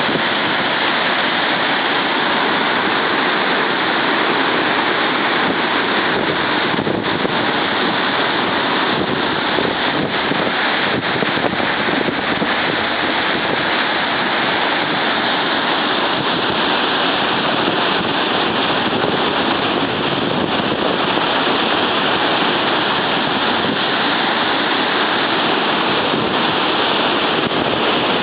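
Great Falls of the Passaic River in flood, a steady loud roar of heavy water pouring over the falls, with some wind on the microphone.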